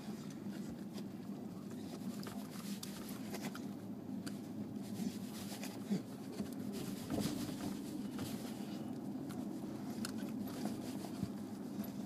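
Steady low road and tyre rumble inside a moving Tesla's cabin, with scattered light scratching and rustling as a dog noses and paws at the carpeted back seat, trying to bury a pig's ear. A sharper knock comes about six seconds in.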